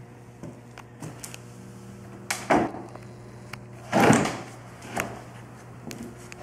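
Wooden wall-bed frame being lifted and tipped up on end, its wood knocking and thumping several times, loudest about four seconds in. A steady low hum runs underneath.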